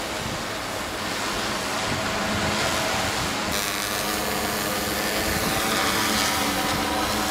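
Large multirotor drone's motors and propellers buzzing steadily overhead, with a high whine that dips in pitch and rises again near the end as it manoeuvres.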